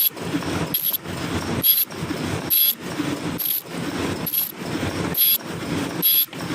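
Paper cup forming machine running, working in an even cycle of a little more than one stroke a second. Each cycle opens with a short high-pitched sound, followed by mechanical clatter.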